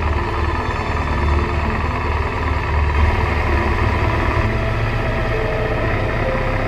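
Motorcycle engine running at low road speed, heard from a camera mounted on the bike; the engine note shifts slightly about three seconds in and again past the middle.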